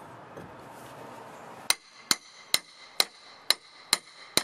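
Hammer tapping a steel pry bar to drive it in under a wooden deck stair tread. There are seven quick, evenly spaced, ringing metal-on-metal strikes, about two a second, starting nearly halfway in.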